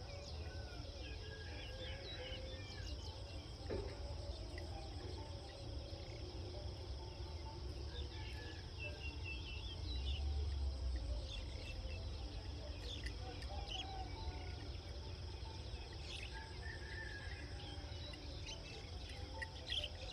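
Countryside ambience: a steady high insect drone with scattered short bird chirps and a low rumble that swells briefly about halfway through.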